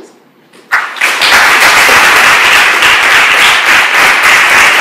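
Audience applause, starting suddenly under a second in and going on loud and steady.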